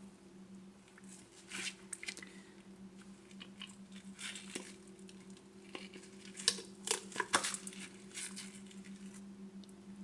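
The cut plastic housing of a Waterdrop refrigerator water filter crackling and crunching as its end cap is twisted and pulled off by hand, with scattered sharp snaps, the loudest a little past halfway, over a steady low hum.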